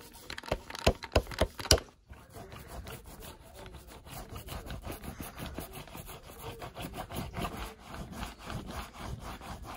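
Several sharp clicks, then a small foam paint roller rolling acrylic paint back and forth across stretched canvas: a fast, dense, rasping rub.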